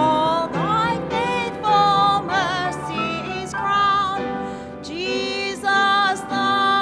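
A hymn sung with a clear woman's voice on top, held notes with vibrato, over sustained keyboard chords.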